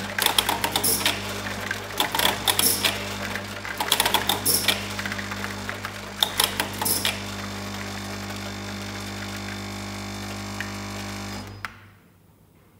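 Tablet-counting machine (IMA Swiftpack Swiftvision SV2) running: a steady electromagnetic vibratory-feeder hum under fast, irregular clicking and rattling for the first seven seconds or so. The hum then goes on alone and cuts off suddenly near the end as the machine stops.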